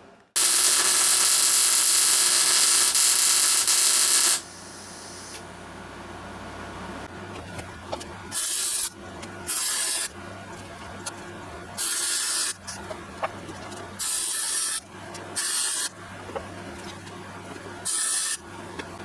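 Electric arc welding of the steel wheel hub: one continuous weld of about four seconds near the start, then six short welds of about half a second each, spaced one to two seconds apart.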